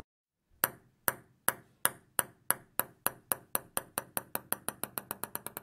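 A table tennis ball bouncing to rest on a hard surface. The sharp clicks start about half a second in, a little over two a second, then come quicker and fainter until they run together into a fast, fading rattle.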